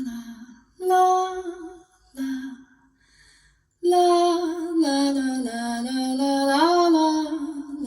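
Solo female voice singing a slow wordless melody, unaccompanied, in short separate phrases with pauses between them, then one long held phrase from about halfway through.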